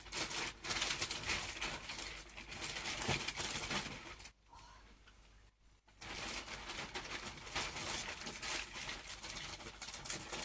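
Christmas wrapping paper rustling and crinkling as it is handled and folded around a gift, with a quieter pause of under two seconds about four seconds in.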